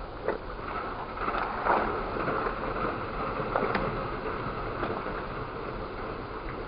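A vehicle wading through a deep creek crossing: water washing and splashing against its front, with its engine running under the water noise. There are a few louder splashes, the biggest about two seconds in and near the middle.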